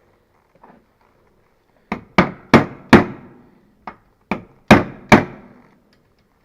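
Hammer blows during work on a motorcycle seat: eight sharp strikes in two groups of four, each ringing briefly.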